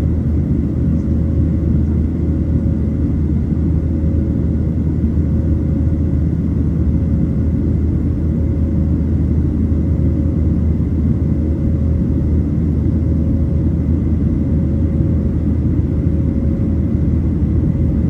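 Airplane engines droning steadily: an even low rumble with a faint steady whine above it.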